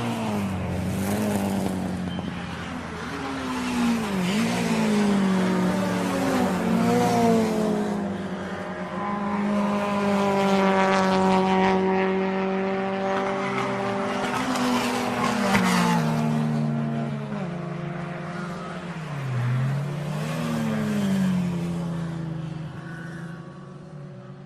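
Racing car engines revving hard, their pitch climbing and dropping again and again as they rise and shift through the gears, with a long steady high note in the middle. The sound fades away at the very end.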